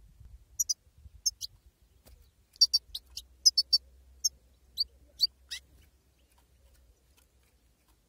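European goldfinch giving a run of short, high chirping calls, many as quick double notes, starting about half a second in and stopping after about five seconds.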